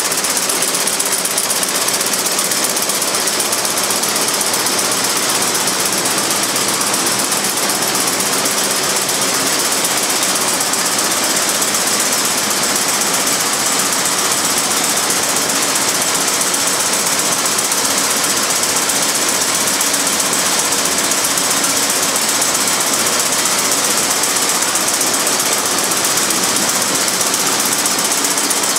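Warner & Swasey servo pindrafter running steadily while drafting wool sliver: a fast, dense mechanical clatter with a strong high hiss.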